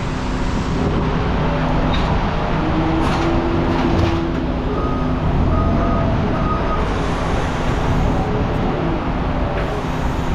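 Steady running noise of a vehicle or heavy machine engine, with a few brief faint whining tones over it.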